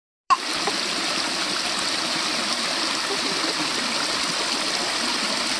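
Water of a small rocky creek running over stones and low cascades, a steady rush that starts abruptly just after the beginning.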